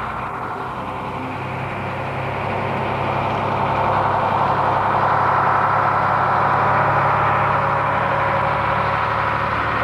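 Heavy engine of a truck or earth-moving machine running steadily, growing louder about three seconds in.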